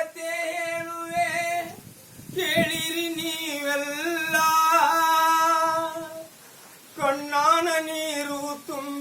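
A solo voice singing long, drawn-out held notes in three phrases, with brief breaks about two seconds in and again past six seconds: the opening of a Kannada folk song.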